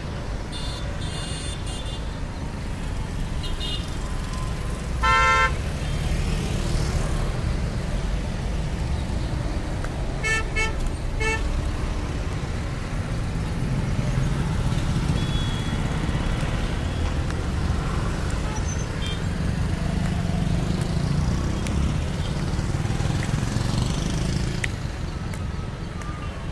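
Mixed city road traffic passing close by: cars, motor scooters and auto-rickshaws with a steady rumble of engines and tyres. A loud single horn honk sounds about five seconds in, and a quick run of short horn toots about ten seconds in.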